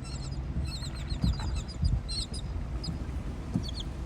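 Seabirds calling: many short, high chirps in quick clusters, over a steady low rumble with a few dull thumps.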